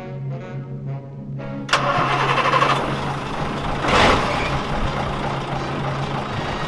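Mercedes-Benz diesel truck engine cranking and starting: pulsing for the first second and a half, then catching with a sharp onset and running, with a brief surge about four seconds in. Music plays alongside.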